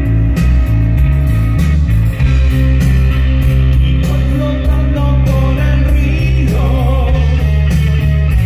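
Live rock band playing over a festival PA, heard loud from among the crowd: electric guitars, bass guitar and keyboards over drums, with a heavy low end.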